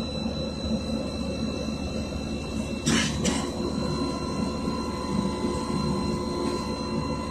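Cabin noise of a LiAZ 5292.67 city bus under way: the steady drone of its compressed-natural-gas YaMZ-53624 engine mixed with road rumble. About three seconds in there are two brief bursts of noise.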